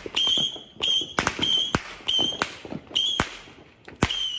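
Fireworks banging in a quick irregular string, about two to three sharp bangs a second. Many of the bangs are followed by a short, steady high tone.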